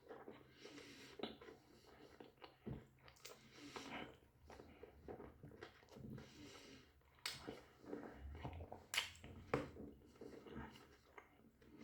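Quiet chewing of a doner kebab, with irregular soft mouth smacks and clicks.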